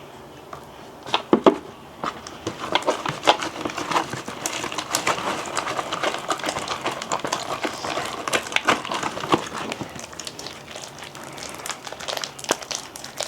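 Sticky slime being mixed and squished by hand, giving rapid, irregular wet clicking and crackling, with a couple of louder knocks about a second in.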